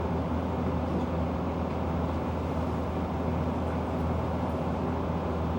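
Frigidaire 8,000 BTU air conditioner/heat pump running in fan-only mode, its blower on low: a steady rush of air over a constant low hum, with the compressor not running.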